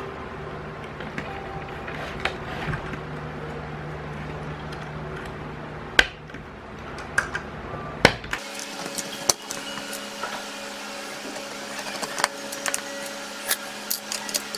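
Scattered clicks and light knocks of hands fitting wires, connectors and bolts in an induction cooker's plastic casing, over a steady low background hum. The sharpest clicks come about six and eight seconds in.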